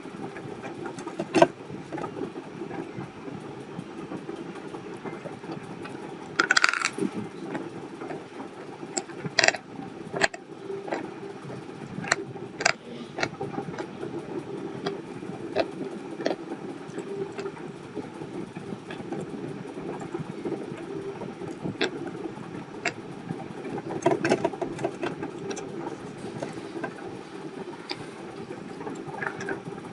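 Chalk pencils crunching as they are bitten and chewed: scattered sharp cracks, with a longer crunch about six and a half seconds in and a cluster of cracks later on. A steady low hum runs underneath.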